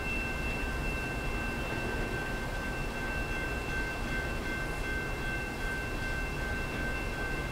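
Canadian National freight train crossing a steel truss bridge at a distance: a steady low rumble of the cars rolling over the spans, with a constant high-pitched ringing tone laid over it.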